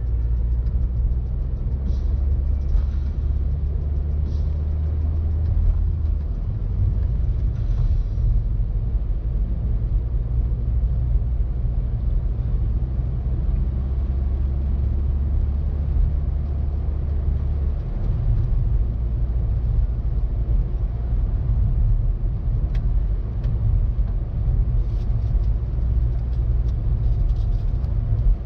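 Car engine and tyres rumbling steadily, heard from inside the cabin while driving on a snow-covered road. The low engine drone changes pitch about six seconds in and again a little past the middle.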